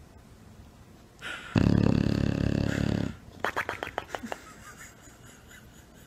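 English bulldog snoring in its sleep: one loud, rattling snore lasting about a second and a half, then a short fluttering run of quick clicks that fades out.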